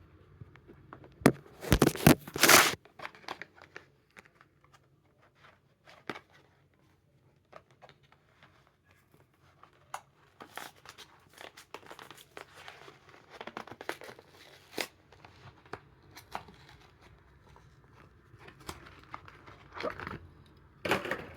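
A Hot Wheels die-cast car's cardboard-and-plastic blister package being torn open by hand: a few loud tears about a second in, then intermittent crinkling, rustling and small clicks of packaging as the car is worked free.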